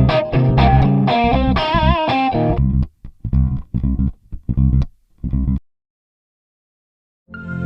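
Background music: an electric guitar and bass riff in short choppy notes, with some bent notes about two seconds in, ending in a few separate stabs and stopping dead about five and a half seconds in. After a moment of silence a sustained ambient synth chord comes in near the end.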